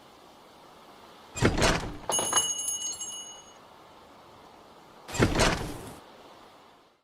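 Two thumps about three and a half seconds apart. The first is followed right away by another hit with a short high ringing tone that fades out after about a second and a half.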